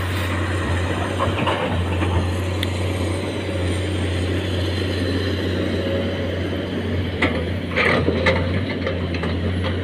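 Heavy diesel tipper truck engine running steadily, with a few sharp knocks or rattles about seven to eight seconds in.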